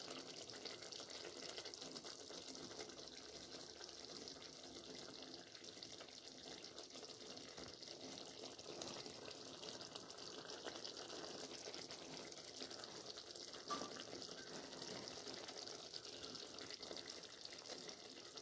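Chicken curry gravy simmering in a pan: a faint, steady bubbling and sizzling, with one brief louder click about 14 seconds in.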